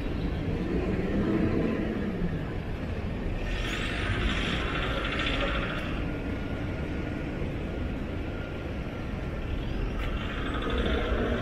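City road traffic: vehicle engines running and passing with a steady low rumble, a passing engine's pitch falling in the first two seconds, and two stretches of hissing, one a few seconds in and one near the end.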